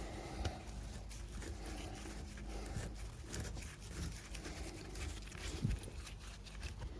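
Scattered light clicks and rustling handling noise from hand tools working on a diesel high-pressure fuel pump as the last Torx screw is undone and the part is worked loose.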